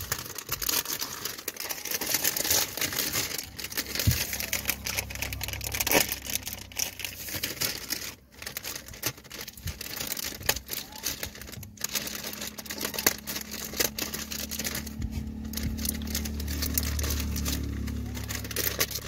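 Crinkling and crackling of a plastic food packet handled by macaques on a car bonnet, with scattered sharp knocks and a low steady hum underneath.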